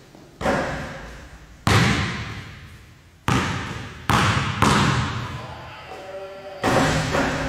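Basketball thuds, bouncing on the court and being dribbled and passed, about six sharp hits at uneven intervals. Each hit rings on with a long echo in a large, hard-walled gymnasium.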